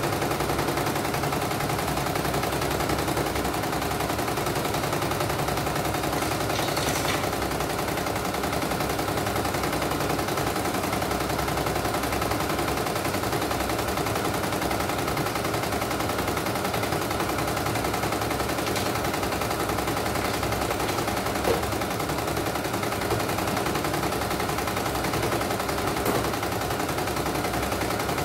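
CNY E900 computerized embroidery machine stitching steadily, a continuous fast clatter of the needle bar. It is running a test embroidery after its mainboard was replaced.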